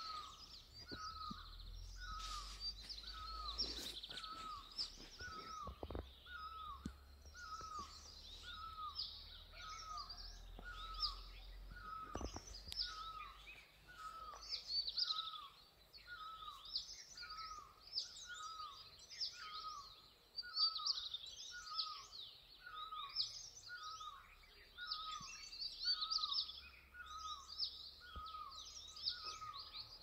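Morning birdsong: one bird repeats a short, down-hooked note about three times every two seconds, steadily, over a busy chorus of higher chirps and twitters from several other birds. A low rumble sits under the first half, with a couple of faint knocks.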